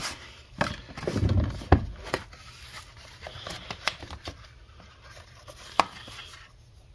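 Black cardboard knife box handled and opened by hand on a table: irregular knocks and taps as the box and its flaps are set down and pressed, with soft rubbing and sliding of the card between them. The sharpest knock comes a little under two seconds in, with another near six seconds.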